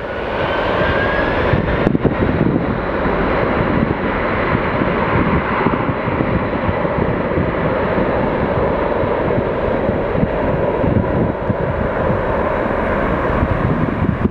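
Air Canada Rouge Boeing 767's twin jet engines running at high power as it lines up and rolls away down the runway: a loud, steady rush with a faint rising whine in the first couple of seconds.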